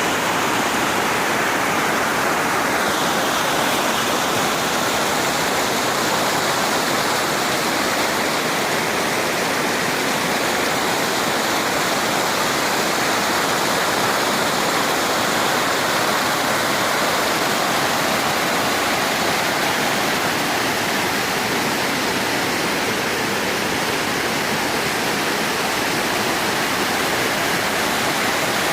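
Waterfall: water pouring steadily over the drop, a constant, even rush that does not change.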